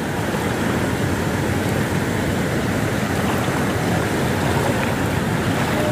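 Steady rushing of shallow stream water close to the microphone.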